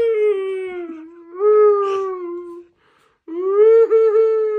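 Three long, high wailing cries in a row, each held at a steady pitch for a second or more and sliding slightly down, with a short silent gap before the last.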